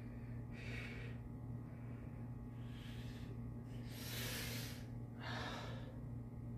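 A man breathing hard while he squats and stretches: four separate breaths in and out, the longest and loudest about four seconds in. A steady low hum runs underneath.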